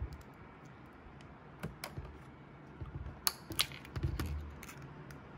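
Small metal clicks and clinks as screws are picked up by hand and fitted onto a cordless drill's bit, the loudest pair about three and a half seconds in, followed by a brief low hum.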